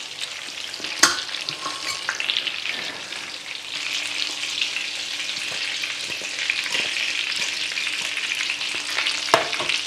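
Frikadellen (German meat patties) sizzling as they fry in oil in a pan, the sizzle thickening about four seconds in. A sharp knock comes about a second in and another near the end.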